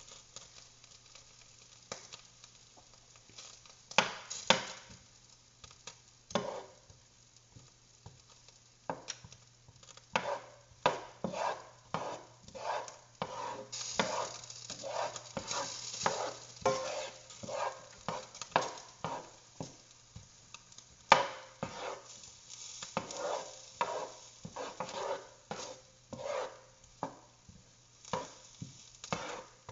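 Kitchen utensil work on the onions: irregular knocks and scrapes, a few a second, starting about four seconds in, with stretches of sizzle-like hiss, over a steady low hum.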